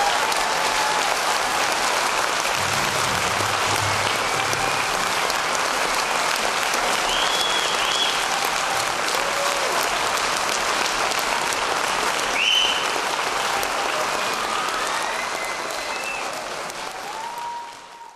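Audience applauding, with a few short whistles. The applause fades out near the end.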